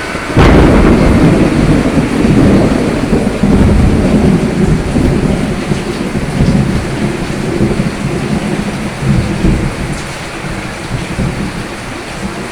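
A sharp thunderclap about half a second in, followed by a long low rolling rumble of thunder that slowly fades, over steady rain.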